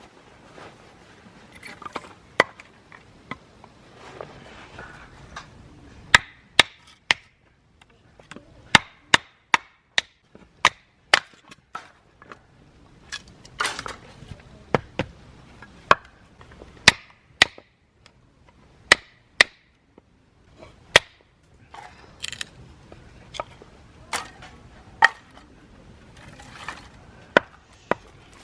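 Repeated sharp chopping strikes on wood, irregularly spaced: often two or three close together, then a pause of a second or more.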